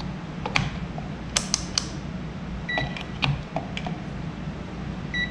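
Digital multimeter giving two short, high beeps, one about three seconds in and one near the end, amid clicks and taps of fingers on its buttons and of the test leads being handled. A low steady hum runs underneath.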